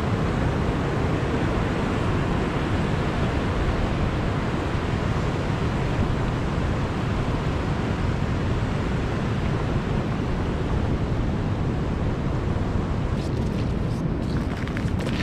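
Ocean surf washing up over a sand beach: a steady rushing noise with wind rumbling on the microphone. A few short clicks come near the end.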